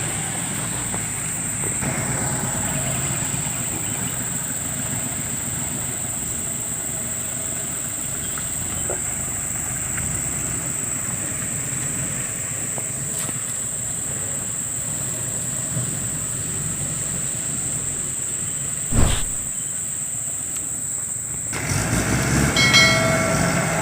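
A vehicle engine running steadily under a constant high-pitched drone, with a single sharp knock about three-quarters of the way through.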